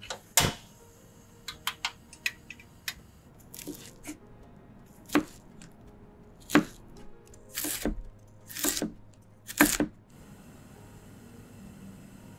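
Kitchen knife slicing zucchini into matchsticks on a wooden cutting board: about six separate chops roughly a second apart, after a sharp click near the start and a few lighter taps. A steady faint hiss comes in near the end.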